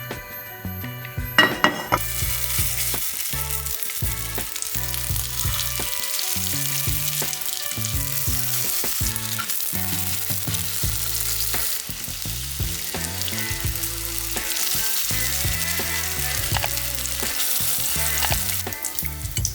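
Food frying in hot oil in a pan, a steady sizzle that starts about two seconds in and stops near the end. Background music plays throughout.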